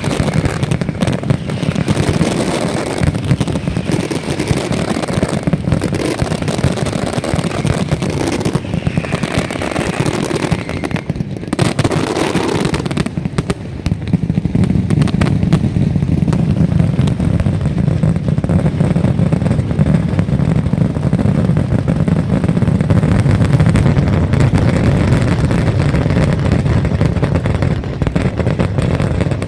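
Nocturnal mascletà fireworks: a loud, dense, unbroken barrage of firecracker bangs. About halfway through, the high crackle thins and the bangs merge into a deep continuous rumble.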